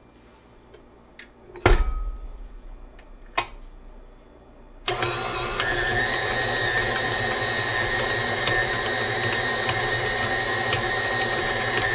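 A heavy clunk about two seconds in, then about five seconds in a KitchenAid Artisan Design tilt-head stand mixer switches on and runs steadily, its dough hook kneading chapati dough in a glass bowl.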